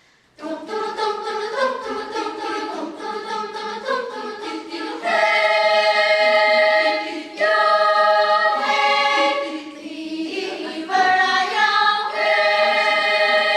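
A choir singing, several voices holding long notes together, with no instruments heard. It grows louder about five seconds in.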